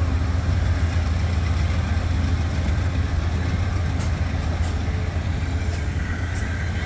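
Amtrak passenger coaches rolling past at speed: a steady low rumble of wheels on rail, with a few faint clicks from about four seconds in.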